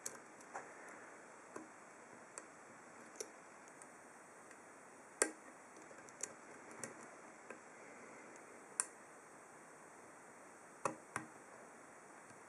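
Faint, irregular metallic clicks and ticks of a deep-hook lock pick probing and lifting the pins inside an ASSA Ruko 2 padlock's 7-pin core, about a dozen clicks spread unevenly, the sharpest about five seconds in.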